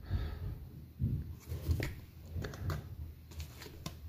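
Hands handling trading cards and a clear plastic card holder: soft rustling with a few light clicks and taps as the cased card is set into a plastic display stand.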